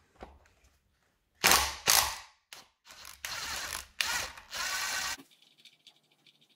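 Makita cordless impact driver hammering in short bursts on the alternator rotor bolt of a BMW R100 engine, a bolt with a worn head, working it loose. Two loud bursts come about a second and a half in, then several more in quick succession, stopping a little after five seconds, with a few faint clicks after.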